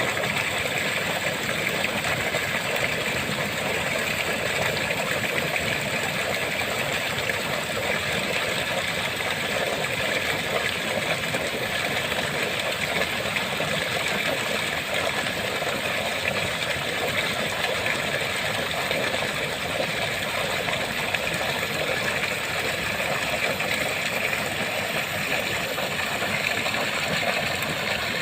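Water of a small waterfall pouring and splashing in a steady, unbroken rush.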